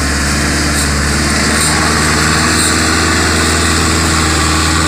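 Belarus 510 tractor's diesel engine running hard under a heavy load, hauling a trolley piled high with sugarcane. The engine note is steady and gets a little louder about two seconds in.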